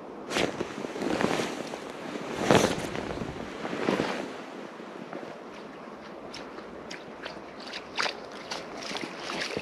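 Wind on the microphone, with a few short rustling bursts in the first four seconds and then a run of small sharp clicks.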